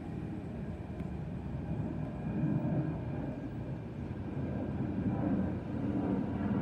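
Boeing 737-900ER airliner's CFM56-7B turbofan engines heard from the ground as it passes overhead: a steady low rumble that swells slightly and wavers, with a faint whine above it.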